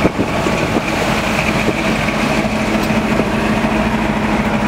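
Classic car engine idling, a steady, even drone.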